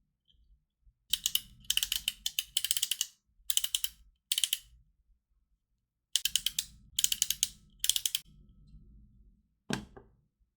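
3D-printed PLA tread clicker fidget being rolled, its track links ratcheting in runs of rapid plastic clicks, several bursts with short pauses between. One dull knock near the end.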